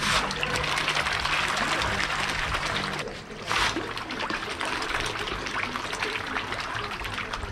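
Catfish splashing and churning at the surface of a tarpaulin fish pond as they take floating feed, a steady crackle of small splashes and trickling water, with a faint low hum underneath for the first few seconds.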